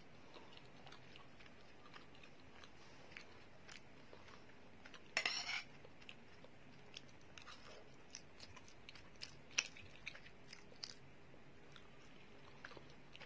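Faint chewing of Maggi instant noodles, with small scattered clicks throughout and one brief louder noisy sound about five seconds in.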